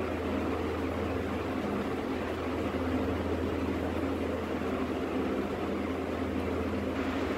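Steady low machine hum, like a fan or air conditioner running, with a few faint steady tones above a low drone.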